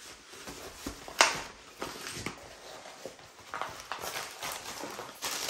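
Paper wrapper rustling as it is unrolled from a rolled diamond painting canvas, and small plastic bags of drills crinkling as they are handled, with irregular taps and knocks. The loudest is a sharp click about a second in.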